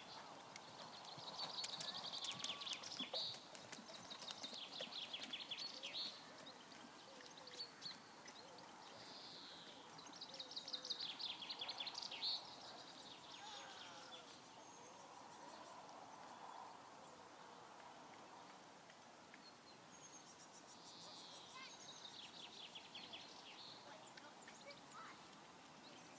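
Songbirds singing in short, rapid trilling phrases that recur every few seconds, over a faint outdoor background.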